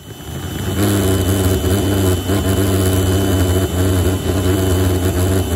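Homemade propane-fuelled pulsejet, built from a Coleman propane cylinder, running with a loud, steady low buzz that builds up over the first second. An electric blower is held to its intake.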